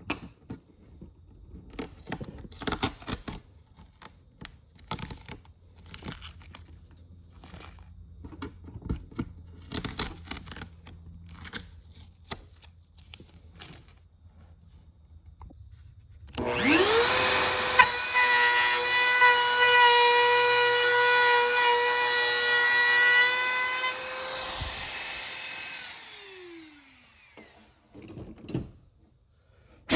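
High-speed rotary cutting tool spins up to a steady high whine, runs for about nine seconds while cutting into the wooden drawer front, then coasts down in falling pitch. Light knocks and handling clicks come before it.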